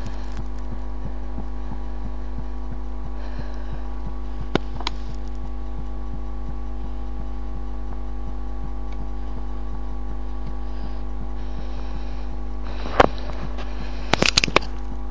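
Recorded human heartbeat under a steady electrical hum, with a few sharp handling clicks: one about four and a half seconds in and a short cluster near the end.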